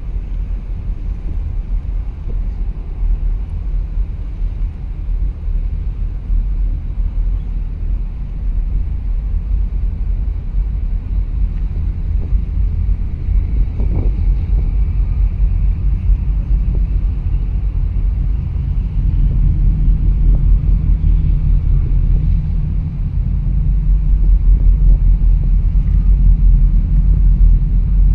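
Wind buffeting the microphone: a loud, fluttering low rumble that grows stronger about two-thirds of the way through.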